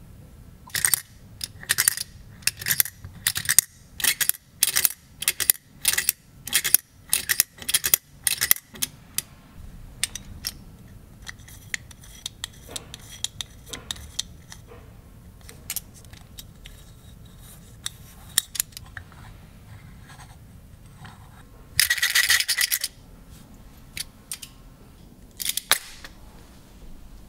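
Vintage chrome-plated metal perpetual flip calendar being worked by hand: its date mechanism clicks sharply again and again, about two clicks a second for the first several seconds, then lighter ticks and scraping, with a louder rattle lasting about a second later on.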